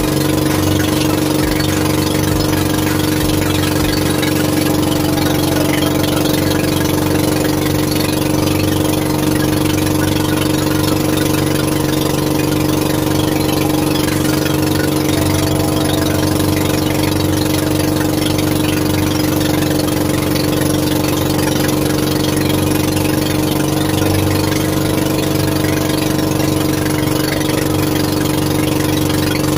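Small fishing boat's engine running steadily at an even speed, a constant hum that does not change.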